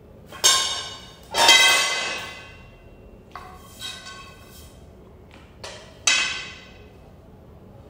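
Metal tubes of a clothes stand knocking together during assembly: about six clanks, each ringing on briefly, the loudest two in the first couple of seconds and another strong one near the end.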